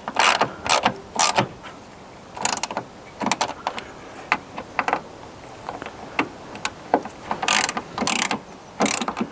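Hand ratchet clicking in short, irregular strokes while snugging up the mounting bolts of a new bonnet latch.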